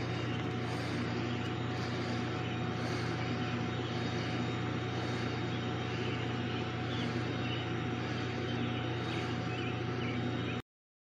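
Steady machinery drone: a constant low hum with a faint high steady whine over it, unchanging until it cuts off suddenly near the end.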